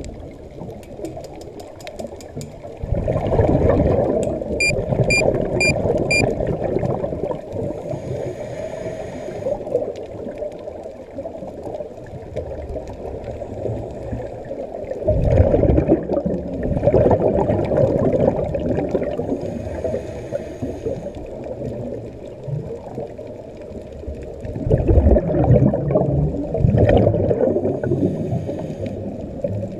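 Scuba regulator breathing underwater: long loud bubbling rushes of exhaled air every several seconds, with quieter stretches between breaths. Four short high beeps come about five seconds in.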